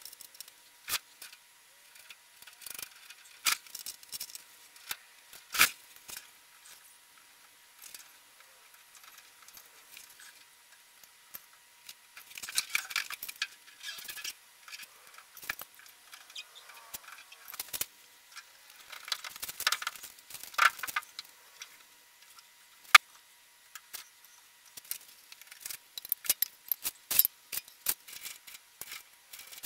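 Fast-forwarded clatter of hand assembly of a sheet-steel blast cabinet: quick clinks and rattles of bolts, nuts and small hardware against the metal panels, with scattered sharp clicks and knocks. The sped-up sound is thin and high, with hardly any low end.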